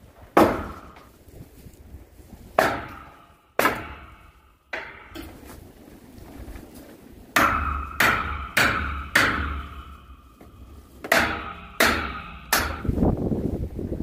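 Sledgehammer striking a steel pry bar driven under wooden stair boards on a steel frame, prying the planks loose. Sharp metal-on-metal clanks, each with a short ring: three spaced strikes, then a quicker run of about seven, roughly two a second.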